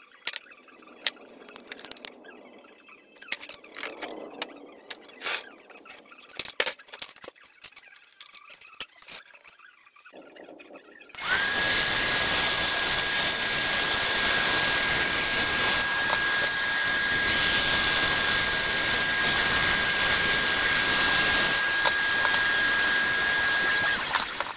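Benchtop band saw switched on about halfway through, running with a steady high whine while it cuts a plywood board, then switched off near the end. Before it, light clicks and scratches as pliers are set on the board and it is marked with a pencil.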